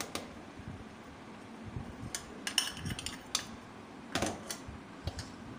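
A spoon clicking and tapping against a small bowl, about eight short, irregular clicks, as cornflour is spooned into the dry gram-flour mix.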